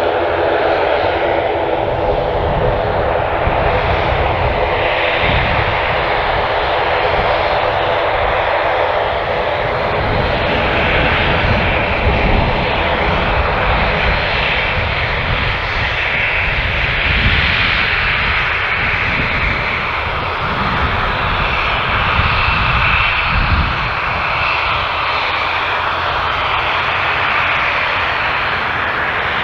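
Turboprop airliner's engines running steadily, a loud, many-toned propeller hum that holds level throughout.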